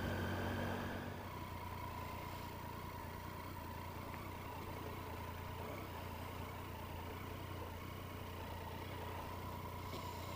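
Motorcycle engine idling at a steady low hum, heard through a helmet Bluetooth headset's microphone, with a thin steady tone above it. The level drops and settles about a second in.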